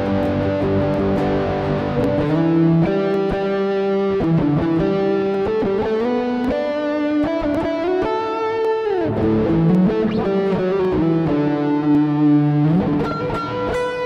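Lyon by Washburn HSS electric guitar played through a Harley Benton American TrueTone overdrive and Fender-style amp-simulator pedal, with mixer reverb. It opens with chords, then moves to single-note lead lines of held notes, with a slide down about nine seconds in and a slide up near the end.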